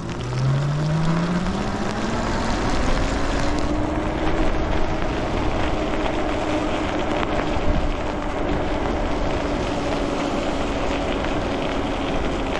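Electric e-bike motor whining, rising in pitch over the first few seconds as the bike accelerates from a slow roll, then holding a steady pitch at cruising speed. A steady rushing noise of wind and tyres on the wet road runs underneath.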